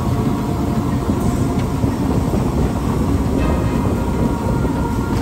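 Steady, loud low rumble, with faint steady tones above it.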